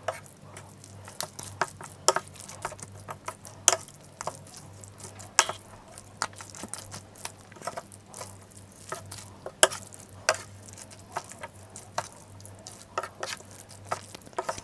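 Wooden fork and spoon stirring and tossing sticky sauce-coated instant noodles on a plate: wet squishing with irregular sharp clicks and taps as the utensils knock against the plate.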